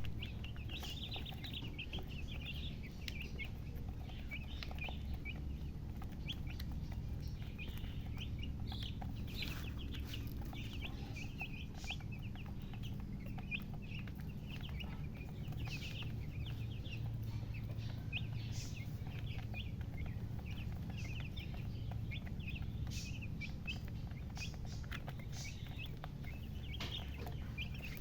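Chickens chirping: a steady stream of many short, high calls overlapping, over a low steady hum.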